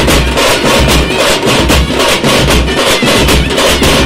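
Street drum band playing a fast, loud rhythm on large stick-beaten bass drums and shoulder-slung side drums: dense, rapid stick strokes over deep bass-drum beats about twice a second.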